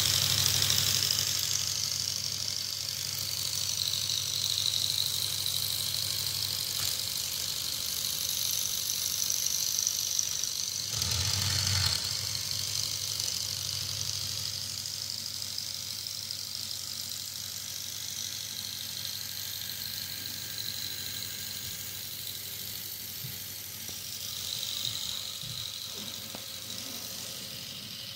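Small electric motors of a BuWizz-powered LEGO Technic RC truck running steadily: a high whine that wavers slowly in pitch over a low hum, with one brief louder surge about eleven seconds in.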